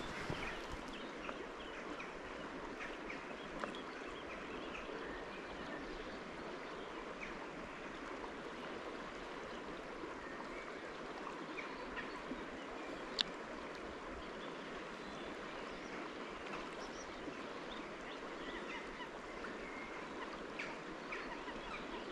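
River water running steadily, an even rushing hiss, with one sharp click about thirteen seconds in.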